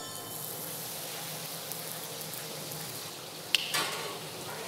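Sliced onion and dried red chilies sizzling in hot oil in a large steel cooking kettle, a steady frying hiss. About three and a half seconds in there is a sharp knock, then a brief louder burst of sizzling.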